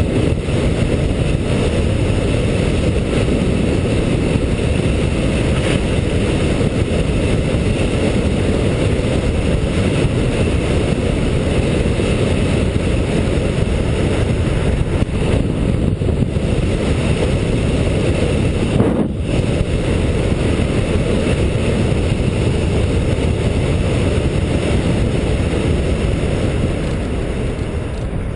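Steady wind rush on a GoPro's microphone, with road noise, from riding an electric bike at speed.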